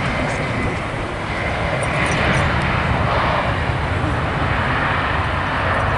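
Airbus A320-232 airliner on approach to land, its IAE V2500 jet engines giving a steady, loud rushing roar that swells slightly about two seconds in.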